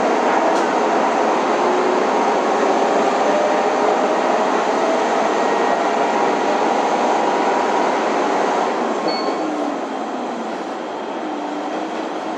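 Train running at close range: a loud, steady rumble of wheels and running gear with several whining tones that slowly shift in pitch, easing off a little after about nine seconds.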